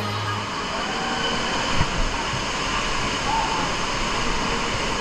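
Steady rush of falling water, even and unbroken. Background music cuts off about half a second in, and two brief knocks stand out about two seconds in.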